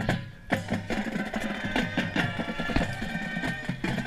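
Marching band playing its field show: held ensemble chords with regular drum hits, dipping briefly just after the start.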